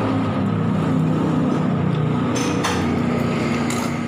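A motor vehicle engine running with a steady low hum, with two short hisses past the middle.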